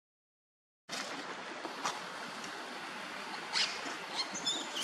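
Silence, then about a second in a steady outdoor hiss begins, with a few brief rustles and some short high squeaks near the end.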